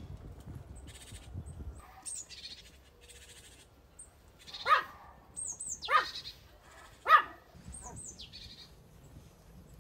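Three loud animal cries, each falling steeply in pitch, a little over a second apart midway through, with small birds chirping high in between.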